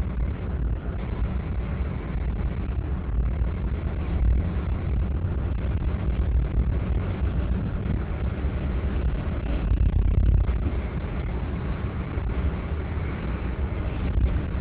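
Car road and engine noise heard inside the cabin while driving: a steady low rumble that swells louder briefly about four seconds in and again around ten seconds.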